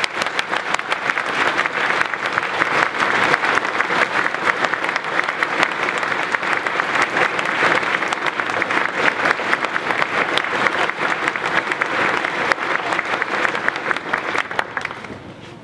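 A large audience applauding: dense, steady clapping that tails off near the end.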